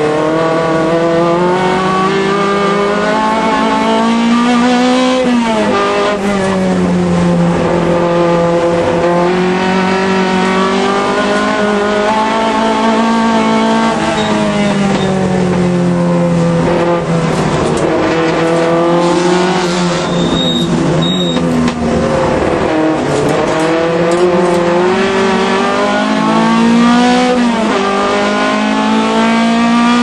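Alfa Romeo race car's engine running hard at racing speed, its pitch climbing through the revs and dropping sharply a few times, at gear changes or braking.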